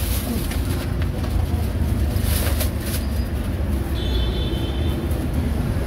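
Steady low rumble of road traffic, with crinkling of a thin plastic bag as a styrofoam food box is slipped into it.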